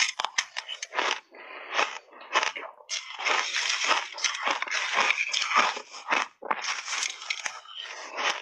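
Shaved ice coated in matcha and milk powder crunched and chewed in big mouthfuls: a dense run of crisp crunches with a few brief pauses between bites.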